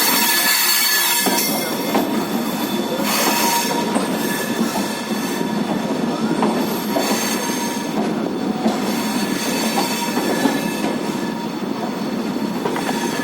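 02979 Jaipur Superfast train running into the station, the rumble of its coaches overlaid with a steady high-pitched squeal, the strange sound this train has been making on its run.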